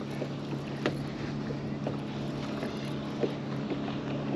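Steady low hum with wind and water noise on a bass boat, with a couple of short sharp clicks, one about a second in and another after three seconds.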